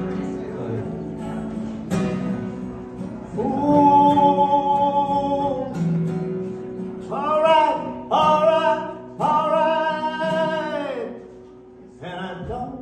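Acoustic guitar playing under a male voice that sings long held notes with no clear words, in two phrases after a few seconds, then dropping away near the end.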